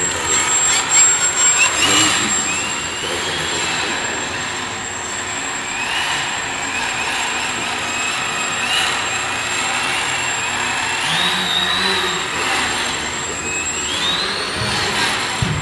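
Homemade CNC machine's stepper motors whining as the axes move, the pitch gliding up, holding and dropping again several times as the motors speed up and slow down, over a steady mechanical running noise.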